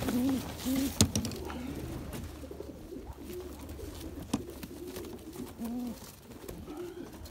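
Domestic pigeons cooing over and over, with a sharp knock about a second in and a lighter one later.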